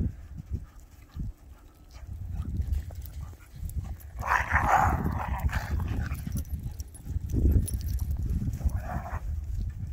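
Dogs playing chase in snow: a short animal call about four seconds in and a briefer one near the end, over a low rumble.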